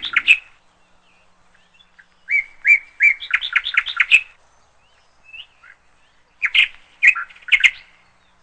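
A bird chirping in three runs of quick, high notes, the longest lasting about two seconds, with short quiet gaps between them.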